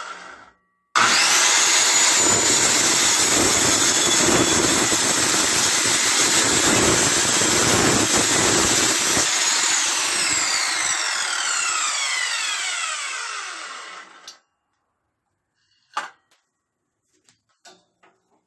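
Bosch GKS 150 circular saw with a 24-tooth blade starting abruptly about a second in and cutting through a beam of purpleheart (roxinho) hardwood without bogging down; the sound deepens while the blade is in the wood. After the trigger is released the whine falls as the blade spins down, followed by a few light knocks near the end.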